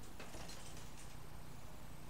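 Faint scratching and light ticks of universal pliers handling a thin copper lead wire on an LG direct-drive washing machine motor stator, mostly in the first second, over a low steady hum.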